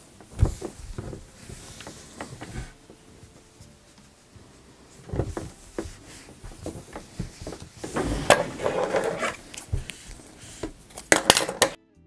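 Handling noise on a tabletop: knit fabric pieces being shifted and smoothed by hand, with scattered knocks and clatters as a pair of scissors is picked up and set down. It cuts off abruptly near the end.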